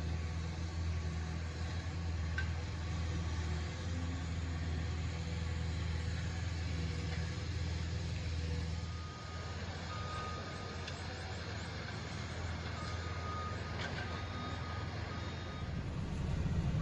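Cat skid steer's diesel engine running steadily under work, easing off about halfway through and picking up again near the end. Its backup alarm beeps in short repeated bursts during the second half.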